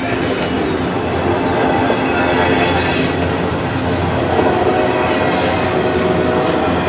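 Norfolk Southern intermodal freight train's container cars rolling past, a steady loud rumble of steel wheels on rail.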